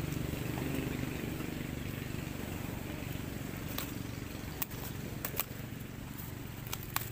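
Handling noise from unpacking a fishing rod: a few sharp clicks and taps from the rod sections and plastic wrap, starting about halfway through, over a steady low rumble.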